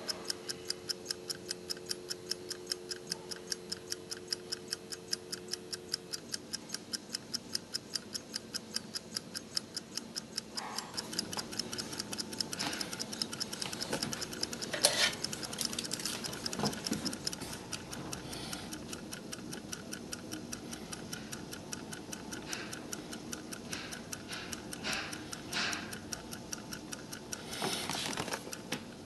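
Mechanical stopwatch movement ticking fast and evenly, several beats a second, as its balance wheel and escapement run. From about a third of the way in, irregular clicks and light knocks join the ticking, the loudest a sharp click around the middle.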